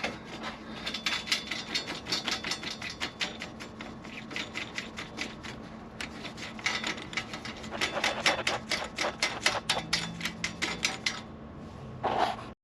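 Rapid run of sharp clicks, about four to five a second, as the cabin light switch's fitting is unscrewed. A short louder sound comes near the end before the sound cuts off.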